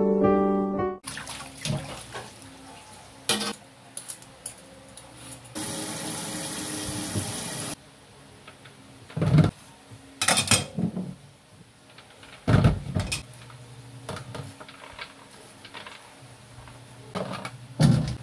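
Kitchen work at a sink: a tap runs for about two seconds midway, and a knife and green papaya knock on a wooden chopping board and plastic basin several times. Soft piano music ends about a second in.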